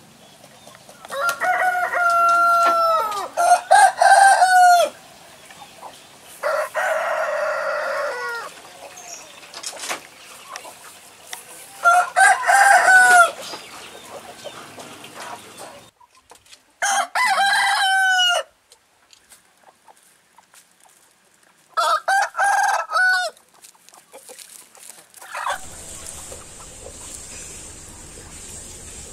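Domestic roosters crowing: about six separate crows of one to two seconds each, with pauses between them. A low steady hum comes in near the end.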